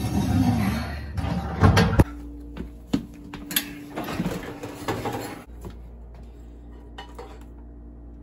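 Kitchen handling sounds: knocks and clicks, then the door of an electric oven being pulled open with a scrape, over a low steady hum.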